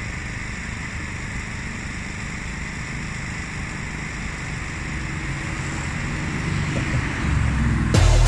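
Steady outdoor rush of wind and distant traffic, with a car's engine growing louder over the last few seconds as it approaches. Near the end a much louder sound cuts in suddenly.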